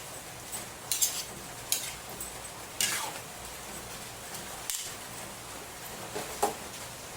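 A metal cooking utensil scraping and clinking against a pan as food is stirred, with several sharp strokes at uneven intervals over a faint steady sizzle.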